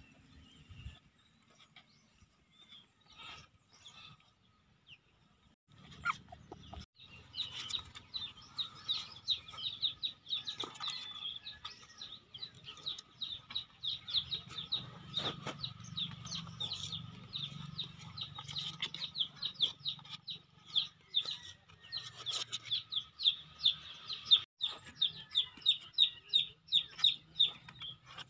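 A bird chirping in a fast, even series of short high notes, starting about seven seconds in and running on steadily.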